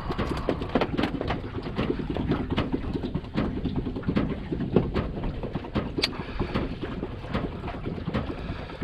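Wind buffeting the microphone and water slapping an aluminum boat hull, with scattered sharp clicks and knocks of fishing gear being handled.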